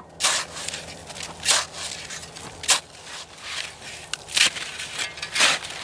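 A shovel digging into and scraping crusted snow on lake ice, five strokes at a steady pace about a second apart.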